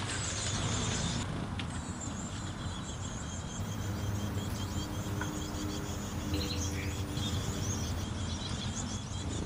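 Nestling birds inside a small backyard birdhouse calling without a break: a dense, high-pitched chatter of chirps over a low rumble. This is the high-pitched sound whose source had been a mystery.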